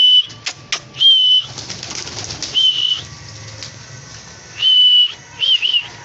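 A man whistling to call his pigeons in: short, level, high whistles repeated every second or two, ending with two quick notes that dip and rise.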